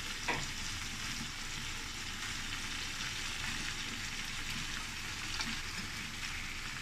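Pre-fried prawns sizzling in a pan of onion, capsicum and tomato bhuna. There is a steady frying hiss, with a light click of the spoon near the start.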